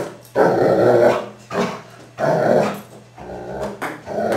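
German Shepherd growling in about four short, rough bursts, with a tennis ball held in its mouth.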